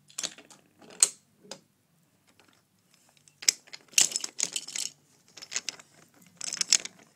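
Wooden toy train pushed by hand along wooden track, its wheels clattering over the track with irregular rattling clicks in short runs, busiest about halfway through.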